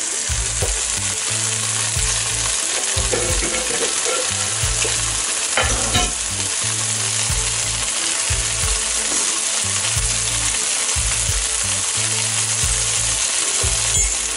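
Red curry with chicken and yard-long beans sizzling steadily as it fries in a non-stick wok, with a few short clicks partway through and near the end.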